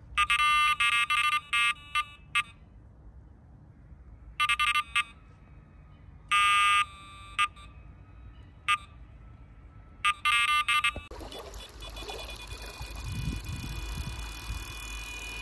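Electronic carp bite alarm sounding a run: rapid bursts of high beeps in fits and starts as line is pulled through it, with one short unbroken tone in the middle. About eleven seconds in, the sound changes to a steadier high alarm tone over a rushing noise and a low rumble.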